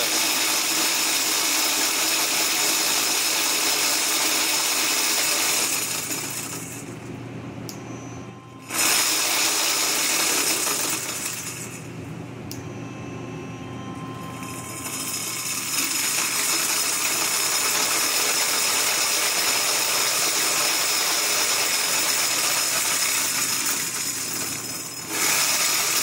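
Old 250-watt electric scooter motor running at full battery voltage, driving the chain and spinning the raised rear wheel of a home-built electric bicycle. It runs loudly, drops away three times and picks up again, because the throttle acts like an on-off switch.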